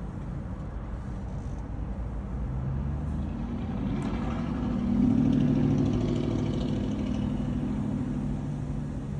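A 2020 Honda CR-V's engine running at low speed as the car is driven slowly forward, growing louder about halfway through.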